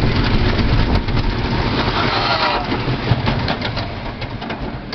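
Wooden roller coaster train rumbling and rattling along its wooden track, with wind rushing over the car. The noise eases over the last couple of seconds, broken by a few sharp clacks.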